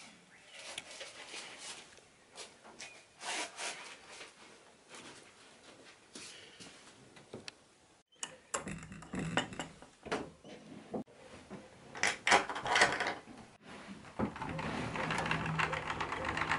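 Clogs being slipped on, then footsteps, rustling and knocks across a room, ending with a wooden door being opened. Near the end a steady background hiss comes in as the door stands open.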